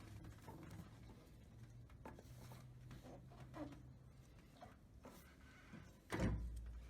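Faint, scattered knocks and clicks of objects being handled, with one louder thump about six seconds in.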